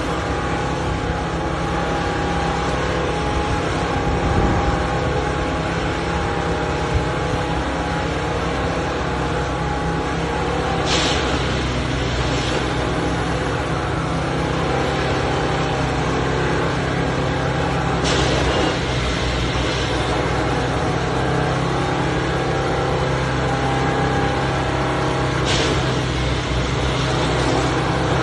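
Plasser & Theurer 09-32 CSM track tamping machine running under test: a steady diesel and hydraulic drone with a constant whine, broken three times by a short hiss, about seven seconds apart.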